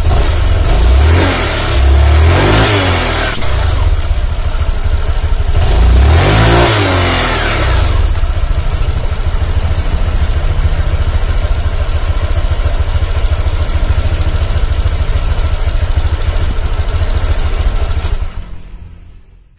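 Honda Vario 150 scooter's engine and CVT revved twice, rising and falling in pitch, then running steadily until it dies away near the end. After the CVT repair it runs fairly smoothly, with a slight noise left but without the earlier rough growl.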